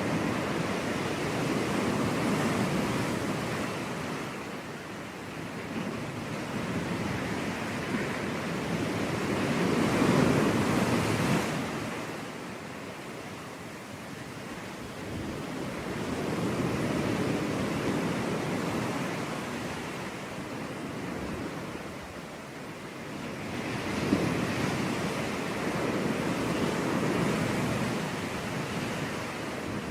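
Sea waves breaking and washing up a beach, swelling and fading about four times, with the loudest wave about ten seconds in.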